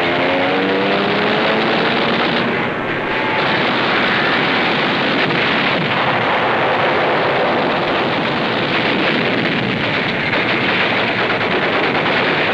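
A loud, continuous roar of battle noise on an old wartime film soundtrack, with a few rising whines about a second in.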